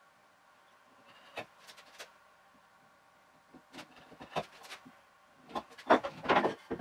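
Hand chisel paring the top edges of a wooden bench leg: short, scattered scrapes and taps, sparse at first and then a louder, denser run of knocks and scrapes near the end.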